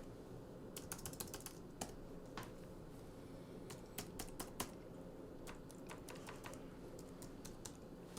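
Typing on a computer keyboard: irregular light key clicks, some single and some in quick runs, over a steady low room hum.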